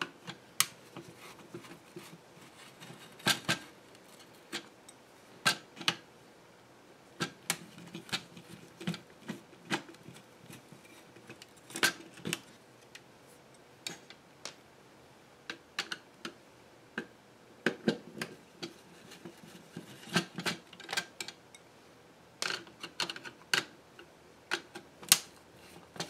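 Irregular small clicks and taps of a screwdriver working the screws out of an Epson HX-20's LCD module, the tip knocking on the plastic case and the small metal screws being handled and set down.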